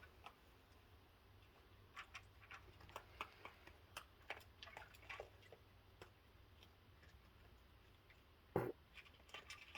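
Faint scattered clicks and crunches of raccoons eating cookies, with one short, louder thud about eight and a half seconds in.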